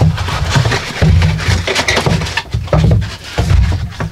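Cardboard box and molded paper-pulp packaging being handled as a boxed appliance is lifted out, with rustling, scraping and irregular low bumps, and a plastic bag crinkling.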